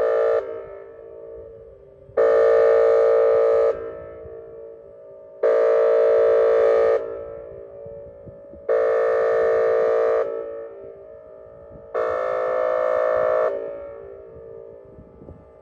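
Whelen WPS-2810 outdoor warning siren sounding its airhorn tone. It gives long, steady, level-pitched blasts of about a second and a half, repeating about every three seconds, each fading off in an echo. One blast cuts off just after the start, and four full blasts follow.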